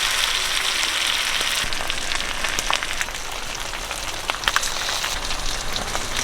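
Pork belly sizzling on a hot grill pan: a steady hiss full of small crackles and spits of fat, denser for the first second and a half.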